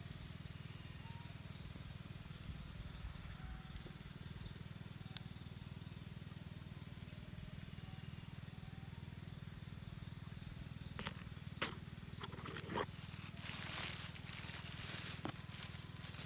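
Dry bamboo leaf litter rustling and crackling as a hand moves the dead squirrel, in a few sharp clicks and then several bursts of rustling through the second half, over a steady low hum.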